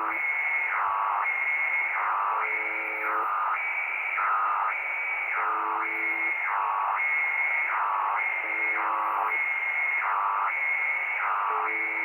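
Shortwave radio reception on the UVB-76 frequency. A steady electronic tone keeps warbling down and back up between a high and a lower pitch over radio hiss. A short, low three-note chord recurs about every three seconds.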